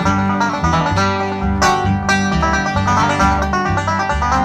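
Bluegrass string band playing the instrumental close of a song: fast picked banjo and guitar over a bass line that steps about twice a second.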